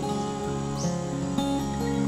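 Background instrumental music with plucked acoustic guitar and held notes.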